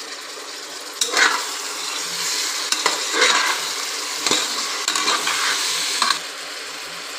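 Sliced tomatoes, onions and green chillies sizzling in hot butter and oil while being stirred. From about a second in until about six seconds, the stirring gets louder, with the metal spoon scraping and knocking against the pot several times.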